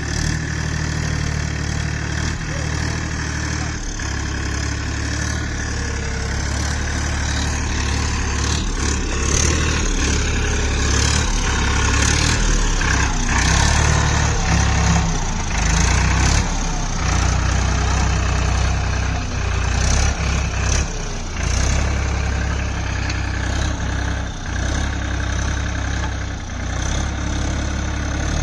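A Powertrac Euro tractor's diesel engine running as it drives through deep, waterlogged mud, growing louder and more uneven for stretches in the middle as it works harder.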